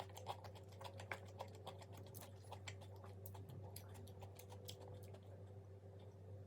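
Crunchy chewing of fried food close to the microphone: a rapid run of sharp crackles that thins out after about five seconds, over a steady low hum.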